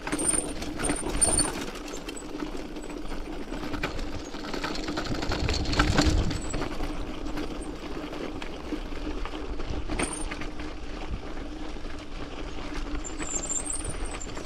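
Mountain bike rolling downhill on a loose gravel road: the tyres crunch and rattle over stones, over a steady buzzing ratchet from the coasting rear hub. It grows louder to a peak about six seconds in.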